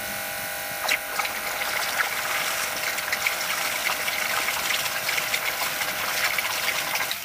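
Pressure washer running with a steady whine while a Kranzle mud sucker sludge pump, driven by the washer's jet, pushes a gush of water out of a wide hose to splash and spatter on the ground. The crackling rush of the water comes up strongly about a second in and keeps going.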